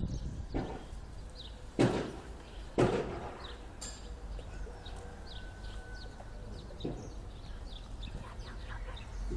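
A few dull thumps, the two loudest about two and three seconds in, over faint, repeated short high chirps.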